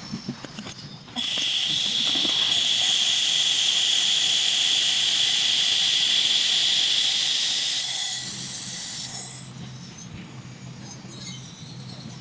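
Handheld laser welding machine running: a loud, steady hiss with a high whine starts suddenly about a second in and fades out around eight seconds, leaving a quieter low hum.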